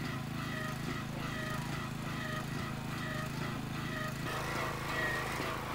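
Small engine-driven diaphragm pump running steadily, a low even hum, as it power-vacuums winter algae off the pool bottom through a suction hose.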